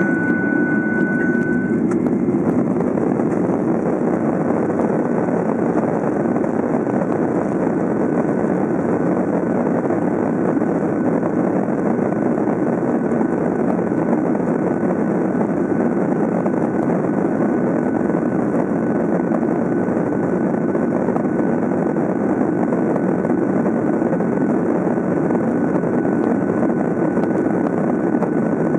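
Steady jet engine and airflow noise heard inside the cabin of a Gol Boeing 737 as it rolls along the runway, with a thin high whine that is loudest for the first two seconds. The level holds even, with no spool-up.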